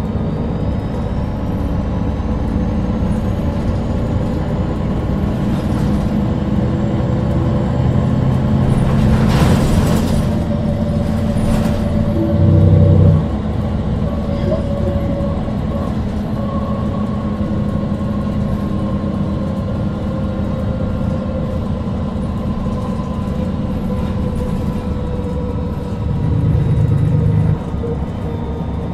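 MAN NG313 articulated city bus with its 310 PS engine and Voith gearbox running on the move, a steady drone that grows louder over the first ten seconds. There are a few rattles, and two short, louder low rumbles come about twelve seconds in and near the end.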